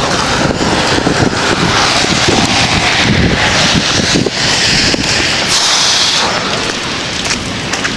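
Heavy rain falling steadily, with wind buffeting the microphone in low thumps. The hiss swells louder in the middle, then eases.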